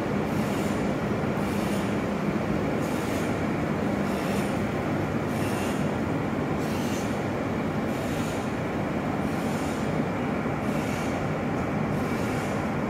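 Steady running noise of a stationary electric train's onboard equipment at the platform, a dense even drone with a hum that fades about a second in and a faint high hiss swelling and fading every second or so.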